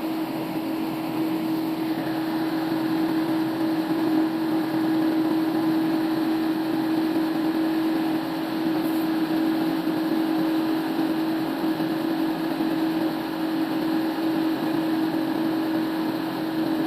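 Band sawmill running: a steady machine hum at one constant pitch over an even whirring noise.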